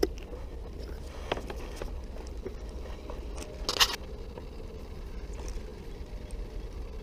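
Handling noise from fishing gear: a few light clicks and knocks over a low rumble and a faint steady hum, with one short sharp scrape just under four seconds in.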